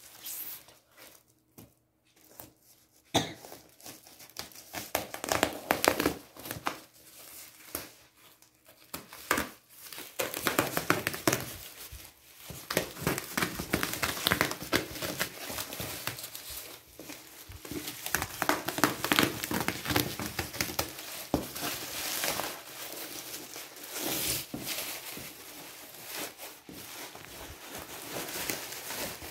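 Plastic bubble-wrap packaging crinkling and tearing as it is cut open with scissors and pulled off a cardboard box. It starts about three seconds in as scattered crackles and becomes a steady crinkling from about ten seconds on.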